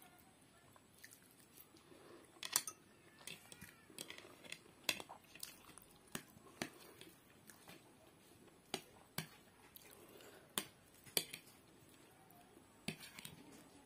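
A person eating Maggi masala noodles and boiled egg close to a clip-on microphone: soft chewing with irregular sharp clicks, about one or two a second.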